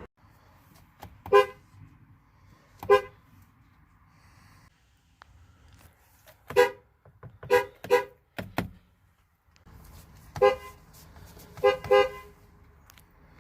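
Chevrolet car horns sounding a string of short honks, some single and some in quick pairs, across several spliced recordings.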